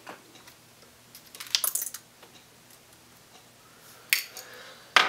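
Small clicks and taps while a laptop and a small Phillips screwdriver are handled as screen-bezel screws come out: a quick cluster about a second and a half in, then two single sharp clicks near the end.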